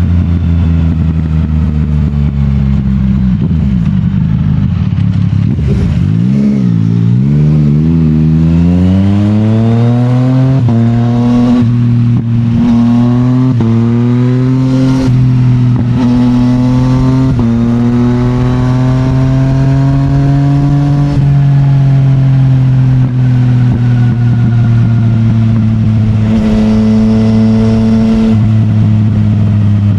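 Yamaha MT-09's CP3 three-cylinder engine through an Akrapovic full titanium exhaust, accelerating through several quick upshifts, with the pitch climbing and dropping back at each shift. It then settles into a steady cruise.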